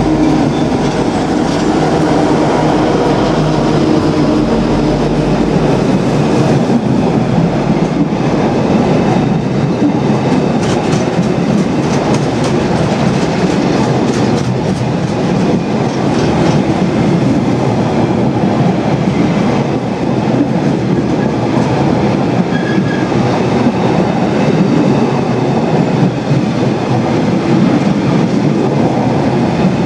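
A train of empty JHA bogie stone hopper wagons rolling past behind a Class 59 diesel locomotive, its wheels clattering steadily. The locomotive's EMD two-stroke engine is heard only in the first second or two before the wagon noise takes over.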